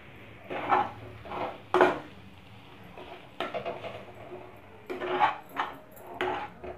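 Metal slotted spatula scraping and clattering against a kadai as mashed potato filling is stirred and mixed, in an irregular series of strokes.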